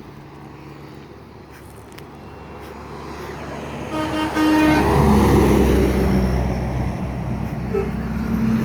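A semi truck approaching and passing on the road, its engine and tyre noise building to a peak about five seconds in. A brief horn toot sounds just before it reaches its loudest.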